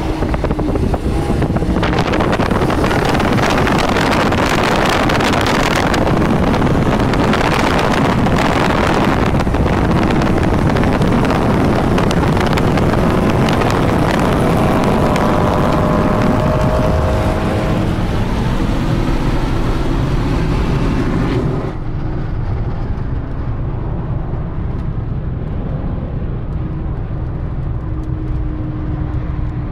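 Loud rush of wind and road noise from cars at very high highway speed, heard through an open side window alongside a Chrysler 300C. About twenty seconds in, the high hiss drops away and it turns to a duller rumble that runs on to the end.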